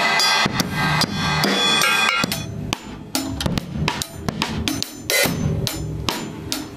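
Acoustic drum kit played with sticks: dense kick, snare and cymbal hits at first, then from about two seconds in, separate sharp drum strokes with gaps between them.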